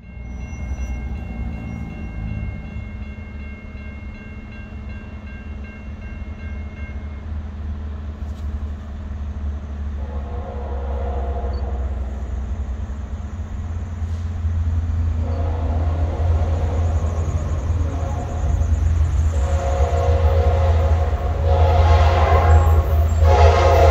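A Norfolk Southern freight train's diesel locomotive approaching, its deep engine rumble growing steadily louder. Its air horn sounds four blasts, about 10, 15, 19 and 21 seconds in, each louder than the last, and the final blast is still sounding at the end.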